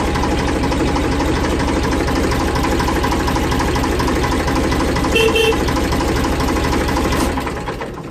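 1992 AGCO Allis tractor engine idling steadily, with a short double honk of the tractor's horn about five seconds in; the engine then shuts off near the end and its sound dies away.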